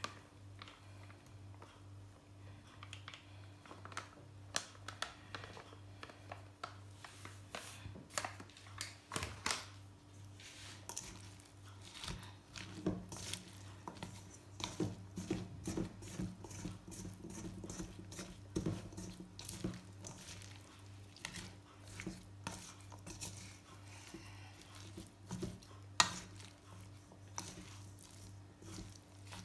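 A spoon stirring and tossing shredded cabbage and carrot with flour in a stainless steel mixing bowl: irregular scrapes and clicks against the metal, with the rustle of the vegetables, and one sharper knock near the end. A steady low hum runs underneath.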